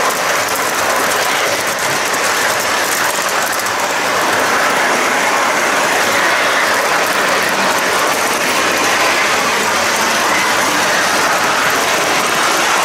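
Metal model train wagons rolling over model railway track, heard close up from the flat car at the tail of the train: a steady, dense metallic rattling clatter of wheels on rails and rail joints.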